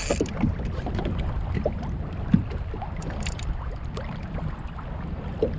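Water and handling sounds on a sit-on fishing kayak: a steady low rumble with scattered small splashes and ticks, and one sharp knock a little over two seconds in.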